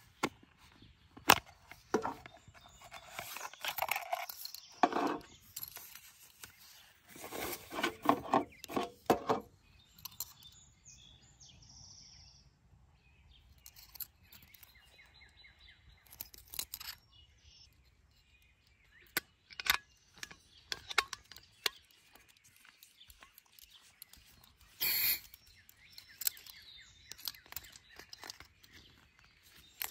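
Hands handling a small gas lantern, its hard plastic case and a leather canister cover: scattered sharp clicks and taps mixed with short bursts of rubbing and rustling, with quiet gaps between.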